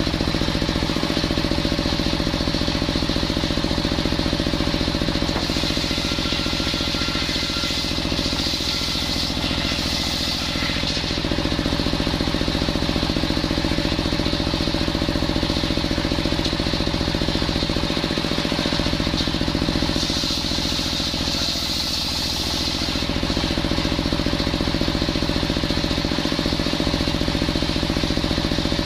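Engine-driven circular saw bench ripping a coconut log: the engine and blade run steadily, and twice, about nine seconds in and again about twenty-one seconds in, the blade's cutting noise comes up brighter as it runs through the wood.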